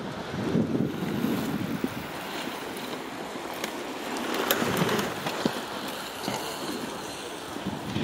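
Wind rumbling on the microphone while a mountain bike's knobby tyres run over a loose dirt track, with a louder hiss of the rear tyre sliding through a corner about halfway through.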